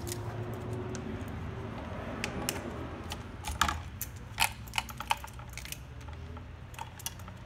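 Scattered sharp plastic clicks and knocks from the RO membrane housing, its push-fit tubing and the mounting clips being handled, thickest midway through, over a low steady hum.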